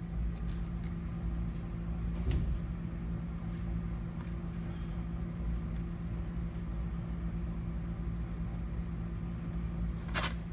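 Steady low background hum with a deeper rumble under it. A few faint clicks of small tool parts being handled and set into place, one about two seconds in and one near the end.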